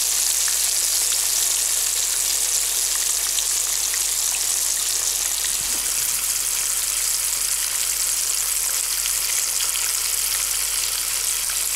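Carp head frying in hot oil in a pan: a steady sizzle with scattered small crackles.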